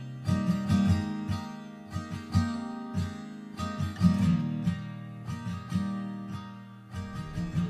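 Background music led by an acoustic guitar, its notes plucked in quick succession and each dying away.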